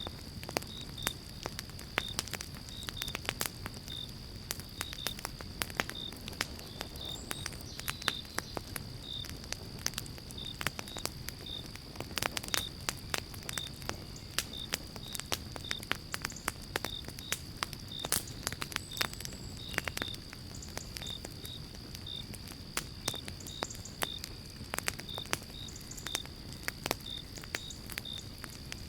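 Wood fire in a fireplace crackling, with frequent sharp irregular pops over a steady low rumble. A short high chirp repeats about twice a second throughout, over a faint steady high tone.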